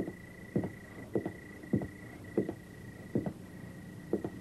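Soundtrack music between lines of dialogue: a run of short, deep drum hits that drop in pitch, about two a second with a few quick doubles, over a steady high held tone and a low hum.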